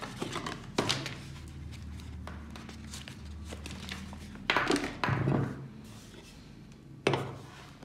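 A few knocks and thuds, about four in all, with the loudest pair near the middle and a single sharp one near the end, over a faint low hum.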